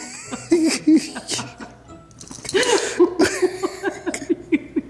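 Background music with laughter; a run of quick, repeated laughing syllables in the second half.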